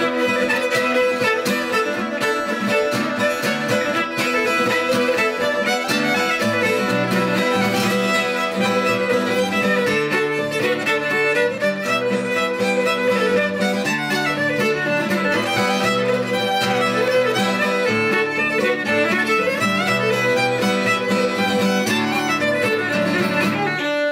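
Fiddle and strummed acoustic guitar playing a Celtic reel together. The fiddle carries a steady stream of quick melody notes over the guitar's driving chord rhythm.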